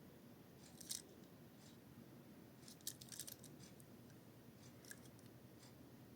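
Near silence with a few faint clicks and light rustles, about a second in and again around three seconds in, from packaged diecast toy cars being handled.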